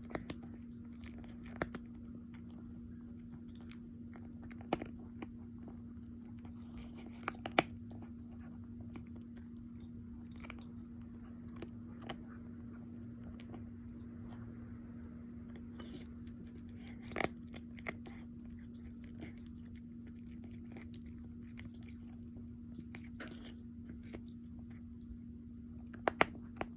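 An animal crunching and chewing food close to the microphone: scattered sharp crunches and clicks, a few seconds apart, over a steady low hum.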